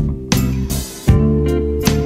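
Background music: sustained pitched notes with sharp percussive hits.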